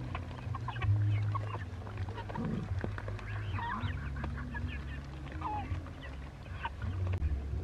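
Chickens and ducks clucking and calling in a busy flock as they feed, with short peeps and scattered pecking clicks.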